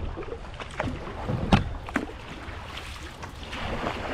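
Kayak paddling on a river: a few sharp paddle knocks and splashes, the strongest about a second and a half in, over the noise of moving water and wind on the microphone.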